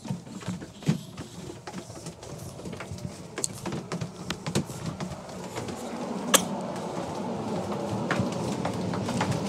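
Footsteps in slippers on wooden floors and stairs: scattered taps and knocks, with one sharp click about two-thirds of the way through and a steady noise growing louder in the second half.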